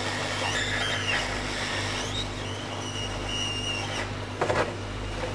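Hot air gun blowing steadily, a constant rush of air with a low hum and a faint high whine that wavers in pitch. It is heating the hard factory glue at the corners of a laptop PCH chip to soften it for removal.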